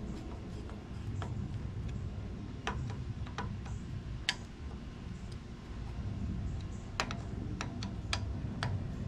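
Scattered sharp clicks and light taps, about eight of them and irregularly spaced, over a low rumble: small handling noises.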